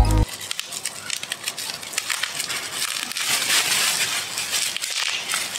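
Plastic bubble wrap being pulled, crumpled and torn open by hand: a continuous crinkling crackle that grows louder about two seconds in.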